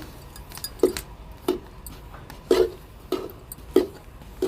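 A spatula scraping and knocking against a kadhai in short strokes, about six of them, as khoya is stirred and roasted into browned semolina.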